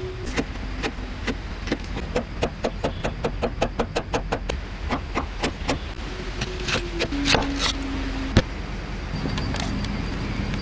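A quick, irregular run of sharp taps or clicks that grows denser partway through and then thins out, over a steady low motor hum whose pitch drops a little around seven seconds in. A single hard knock comes about eight seconds in.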